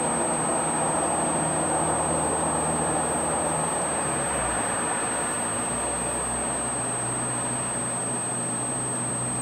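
Steady rushing background noise at an even level, with a constant thin high-pitched whine running under it. A faint low hum fades out about four seconds in.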